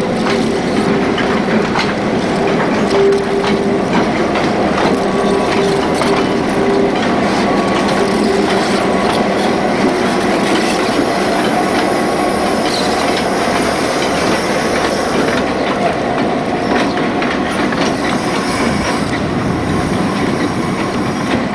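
DBR-class diesel-electric locomotive hauling a train along the track, its engine running steadily with the wheels clicking over the rail joints.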